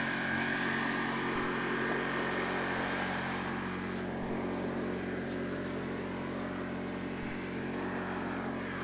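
Steady mechanical drone of a running engine or motor, an even low hum with no change in pace.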